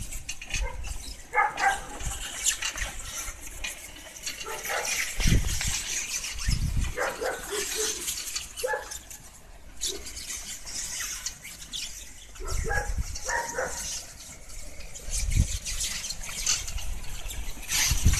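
Black plastic mulch film rustling and crackling as it unrolls from the roll of a hand-pulled mulch-laying machine rolling over the soil, with scattered low bumps and a few short calls.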